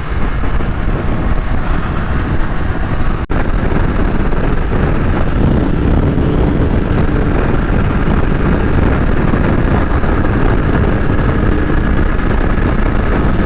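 Motorcycle riding at highway speed: steady engine and heavy wind and road noise on the rider's helmet microphone, with a brief audio dropout a little over three seconds in.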